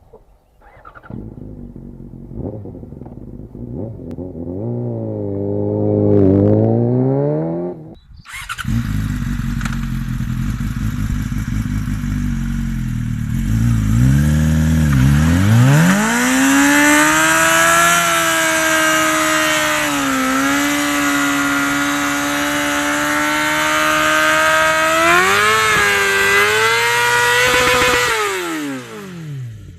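Yamaha YZF-R6 inline-four through a LeoVince SBK exhaust, revved in rising blips, cut briefly about 8 s in, then held at high revs against the rev limiter. From about halfway a hiss of the spinning rear tyre squealing lies over it. The revs dip and climb again before falling away near the end.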